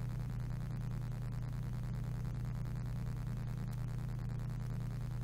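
A steady low hum with a faint hiss, unchanging throughout: background noise of the recording while a silent animation plays.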